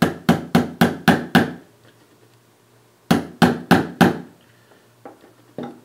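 A small hammer tapping out the larger bottom pin of a Glock 23 frame: a quick run of about six sharp taps, a pause, then four more and two lighter ones near the end. The pin is stuck and doesn't come out.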